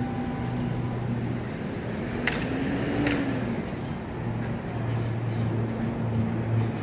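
Steady engine hum and road noise of a moving car, heard from inside, with a low tone that rises and falls about the middle. Two sharp clicks come a little under a second apart.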